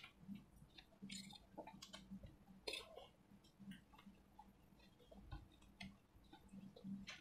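Faint, scattered eating sounds: soft chewing and mouth clicks with an occasional light scrape or clink of a steel spoon on a steel plate, over a low steady hum.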